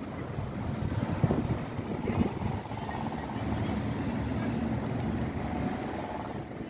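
City road traffic: car engines and tyres making a steady rumble.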